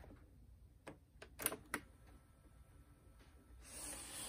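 Several light plastic clicks about a second in, from the cassette lid and keys of a portable flashlight, radio and cassette player being handled, then a soft hiss near the end as playback begins.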